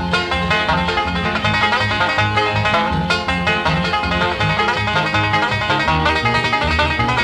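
Bluegrass music with a fast-picked banjo over a steady bass.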